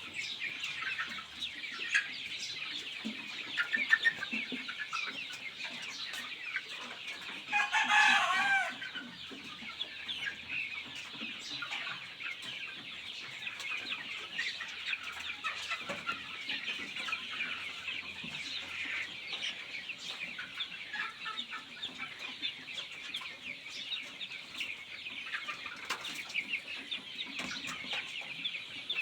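A large flock of poultry-farm chickens clucking and cheeping in a dense, steady chorus, with one louder, drawn-out call about eight seconds in.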